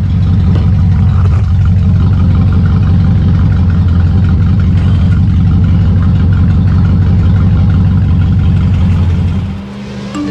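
1990 Range Rover Classic's engine running steadily with a deep, rapid exhaust pulse, dropping away about nine and a half seconds in.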